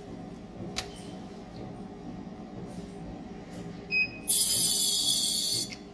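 A Topsonics ultrasonic probe sonicator is started from its touchscreen: a short electronic beep about four seconds in. Then comes a loud, high-pitched screeching hiss of the probe running for about a second and a half, which cuts off suddenly. A low steady hum of the unit runs underneath, with a single click under a second in.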